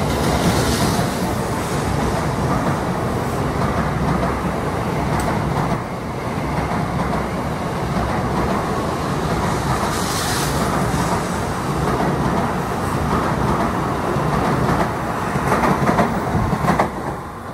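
N700A-series Shinkansen train pulling out of the station past the platform: a steady, loud rumble and rush of wheels on rail, with short spells of hiss and a few sharper knocks near the end before the noise starts to fall away.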